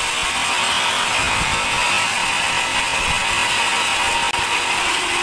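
Sawmill band saw cutting through a large teak log: a steady, loud, high-pitched sawing noise of the blade in the wood.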